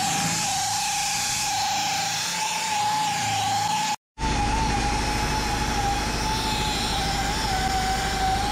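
Electric polisher running with a steady high whine, rising to speed at the start and wavering slightly in pitch as it is pressed against the work. The sound drops out for a moment about four seconds in, then carries on.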